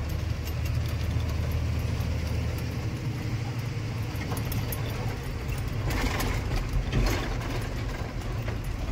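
Truck engine running steadily, heard from inside the cab, with the cab and its fittings rattling and clicking over the road; a couple of louder rattles come about six and seven seconds in.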